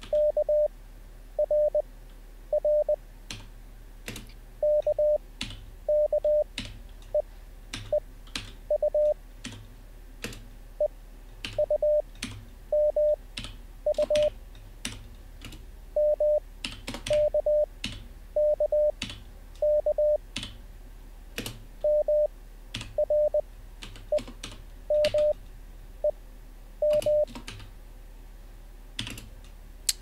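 Morse code practice tone at 600 Hz sending single characters at 20 wpm character speed, spaced out about once a second (5 wpm Farnsworth timing), with computer keyboard keystrokes between them as each character is copied. The code stops about three seconds before the end, leaving only a few keystrokes.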